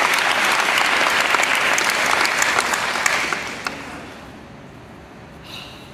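Audience applauding in a gymnasium, with the clapping dying away about three and a half seconds in.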